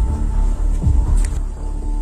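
Background music with a deep bass note that drops in pitch and recurs, over held steady tones.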